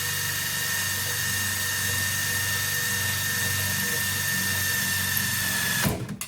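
Ryobi drill spinning a 2 1/8-inch hole saw as it cuts, running steadily with a high whine. Near the end it stops abruptly with a jolt as the hole saw grabs and bends its quarter-inch pilot bit.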